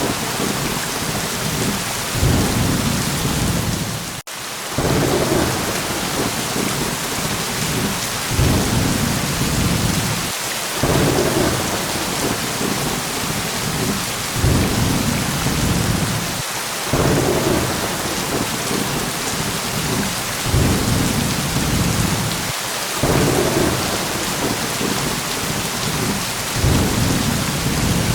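Steady heavy rain with low thunder rumbles that swell and fade every two or three seconds. There is a brief dropout in the sound about four seconds in.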